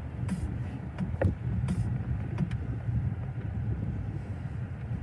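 Low, steady rumble of a car moving slowly, heard from inside the cabin, with a few light clicks scattered through it.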